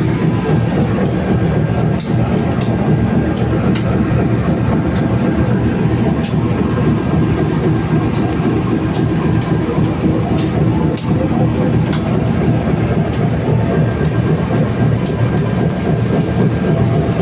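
Diesel engine of a standing passenger train idling: a steady low drone with faint steady tones, and light high ticks here and there.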